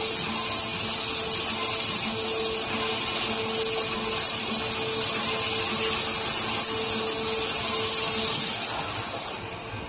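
Waterjet glass-cutting machine running: the high-pressure water jet makes a loud, steady hiss as it works on a glass sheet, dropping off near the end.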